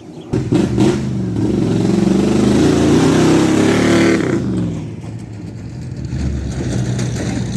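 A vehicle engine starts up about a third of a second in and revs up under acceleration. After about four seconds its pitch drops as it eases off, and it keeps running more quietly.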